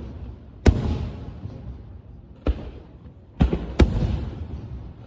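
Fireworks exploding: four sharp bangs, the last two about half a second apart, each trailing off in a fading rumble.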